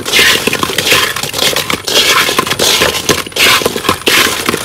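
Sugar-coated fried glutinous rice balls (bánh cam) tossed with chopsticks and a silicone spatula in a metal wok: their hard, crisp shells and the dried white sugar crust scrape and clatter against the metal in repeated strokes. The sugar syrup has dried to a white coating.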